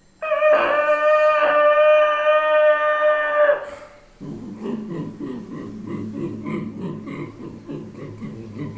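A man imitating a goods train with his voice: a long, steady train-horn blast for about three seconds, then, after a brief pause, a rhythmic chugging of the train running on the rails.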